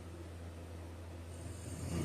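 A man snoring in his sleep: a quieter pause between snores over a steady low hum, then near the end a breathy hiss as the next snore begins.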